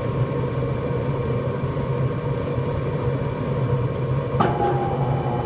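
Furnace running with a steady low hum; about four seconds in there is a click and the freshly refitted blower motor starts, adding a steady whine.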